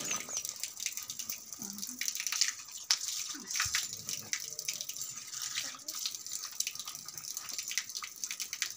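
Water running from an open tap and splashing onto a wet puppy and the concrete below, with irregular splashes as hands wash the dog under the stream.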